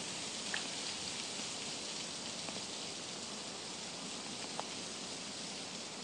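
Quiet outdoor ambience: an even, steady hiss with three faint ticks, and no distinct source standing out.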